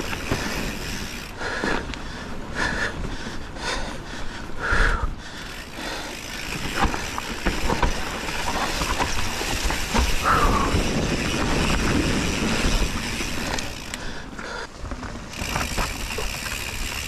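Mountain bike ridden over crunchy singletrack: the tyres rolling and crunching on the trail surface, with the chain and bike clattering in frequent small knocks over bumps.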